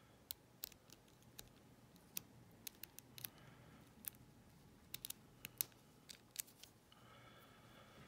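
Lock pick raking and lifting pins inside a brass Lince 50mm padlock, heard as faint, irregular metallic clicks under tension from a tension wrench. The lock is not opening.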